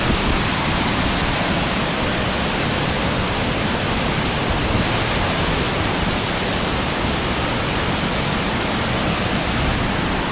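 A large waterfall thundering down nearby: a loud, steady, unbroken roar of falling water.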